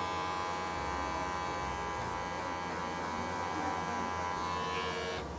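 Electric pet clippers fitted with a 2 mm blade running steadily as they shave through a cat's thick, matted coat, stopping near the end.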